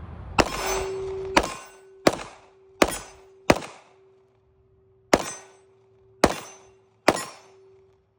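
Eight gunshots fired at a steady pace, each with a short echo tail. There is a pause of about a second and a half after the fifth shot. A faint steady tone hums underneath from the first shot on.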